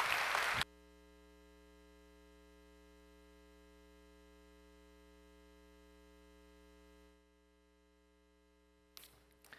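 Congregation applauding, cut off abruptly within the first second, leaving a faint steady electrical hum of several even tones that drops quieter about seven seconds in. A couple of faint knocks near the end.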